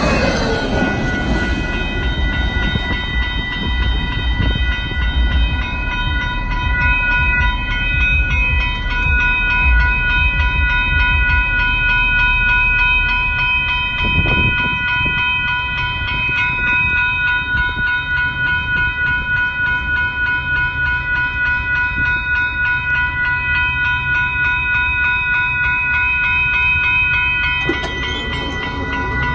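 Grade-crossing warning bell ringing in a steady, fast repeating pulse while the tail of a long intermodal freight train rumbles past, the train's rumble fading over the first dozen seconds.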